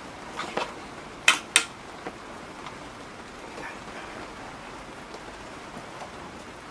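A spanner clinking against the metal of a car's brake assembly as it is worked onto a bolt: a few light clicks, then two sharp clinks in quick succession.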